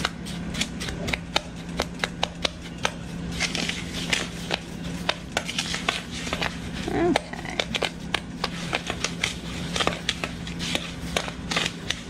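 A spoon stirring dry flour, sugar and cornstarch in a plastic mixing bowl, with quick irregular clicks and scrapes as it knocks the bowl. A low steady hum runs underneath.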